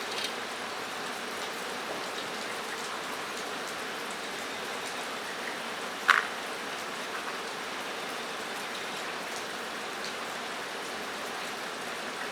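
Steady rain falling on a metal roof, an even hiss throughout, with a single sharp click about six seconds in.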